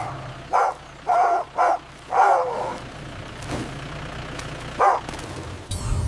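A dog barking, about five short barks in the first two and a half seconds and one more near five seconds in, over a steady low engine rumble.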